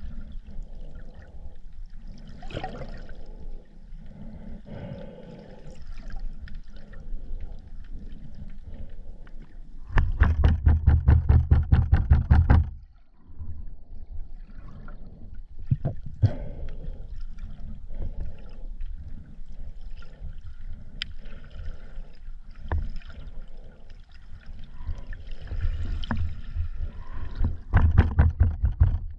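Underwater sound picked up by a submerged camera in shallow rocky sea: water movement and faint crackling. About ten seconds in, a loud rapid pulsing sets in for under three seconds, and it comes back briefly near the end.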